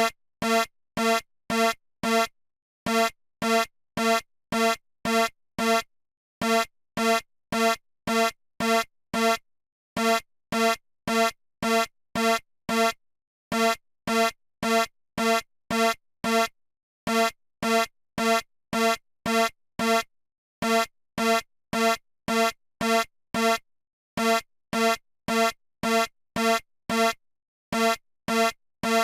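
Homemade mock emergency-alert (EAS) alarm: a harsh, buzzy electronic beep repeated about twice a second in runs of five or six, each run followed by a short pause.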